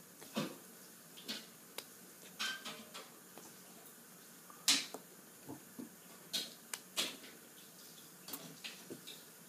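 Irregular short taps and smacks of hands signing in sign language: palms and fingers striking each other and the body, about a dozen sharp clicks, the loudest about halfway through.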